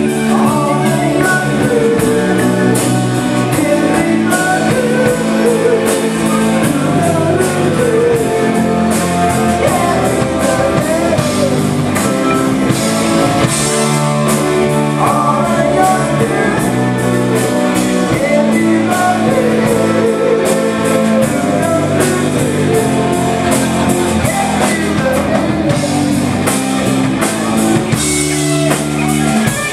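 Live rock band playing: electric guitar and drum kit over a steady beat, with a male singer's voice on microphone.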